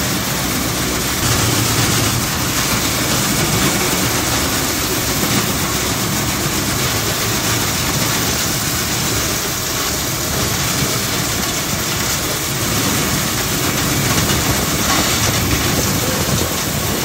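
Steady loud rush of air and machine noise inside a sheet-metal air duct as a compressed-air whip hose is worked through it to knock dust loose.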